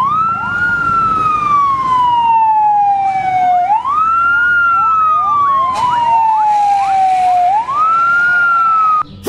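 Fire engine sirens wailing. Each cycle rises quickly and then falls slowly, about three cycles in all, with fainter sirens gliding over one another underneath. The sound cuts off suddenly near the end.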